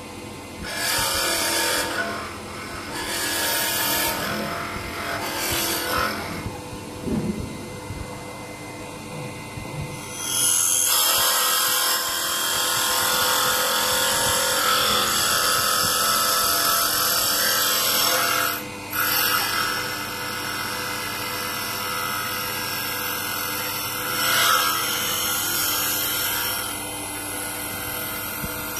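Mini wood lathe's motor running steadily while the tool-post cutter cuts into a spinning wooden workpiece. The cutting hiss comes in a few short passes at first, then a long steady cut from about ten seconds in, broken by a brief pause.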